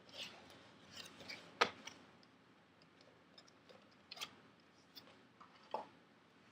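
Faint, scattered clicks and taps of a handheld phone and its packaging being handled, with one sharper click about one and a half seconds in.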